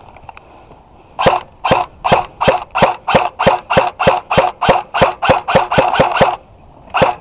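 Airsoft rifle firing a string of about seventeen rapid semi-automatic shots, each a sharp crack with the gearbox clack, speeding up as they go, then one last shot near the end.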